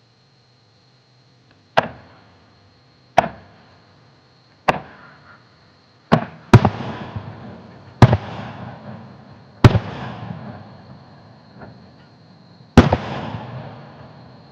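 Aerial firework shells bursting: eight sharp booms, the first three about a second and a half apart and quieter. From about six seconds in come louder bursts, each trailing off slowly in a hissing, crackling tail.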